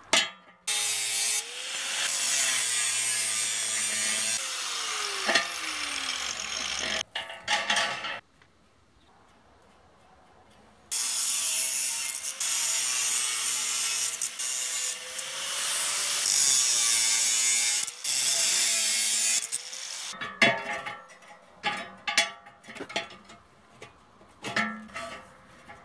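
Angle grinder cutting through steel rebar mesh in two long cuts, its motor pitch sagging and recovering as it bites, with a few seconds' pause between. Near the end, a run of short sharp clicks and knocks.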